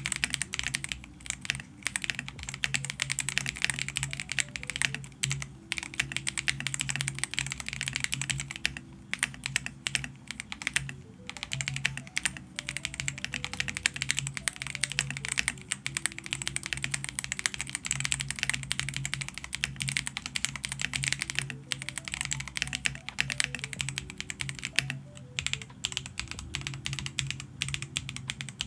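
Fast, continuous typing on a Machenike K500 Pro mechanical keyboard fitted with hot-swap Otemu GR Silver linear switches: a dense stream of key clacks and thocks. Soft background music with low steady notes runs underneath.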